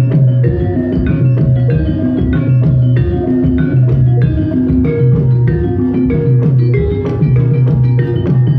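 Javanese gamelan playing: saron and demung metallophones struck with wooden mallets in a brisk, steady pattern of ringing notes, over repeated low ringing notes and drum strokes.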